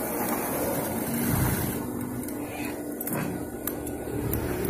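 Industrial sewing machine's motor humming steadily while idle, not stitching, with a few light clicks from about two seconds in as parts are handled at the needle plate.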